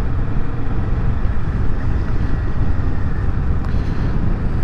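Kawasaki Vulcan S parallel-twin engine running at a steady cruise, mixed with wind rushing over the microphone.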